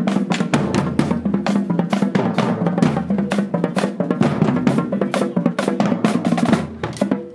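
High school marching band drumline playing a cadence: a fast, continuous run of snare and bass drum strokes over sustained low tones.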